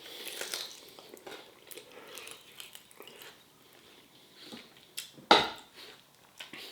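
Chewing and soft clatters of a plate or cutlery, with one sharp knock about five seconds in.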